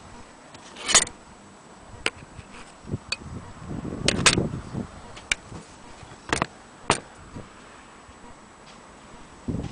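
Scattered sharp clicks and knocks, about seven at uneven intervals, the loudest about a second in and a cluster around four seconds: hard parts of an antique Willcox & Gibbs sewing machine being handled, not run at a steady pace.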